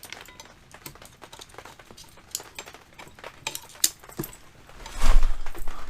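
Scattered light clicks and taps of metal as a brake caliper fitted with new pads is worked over the rear rotor of a BMW K1200R Sport. About five seconds in comes a louder knock and scrape with a low rumble.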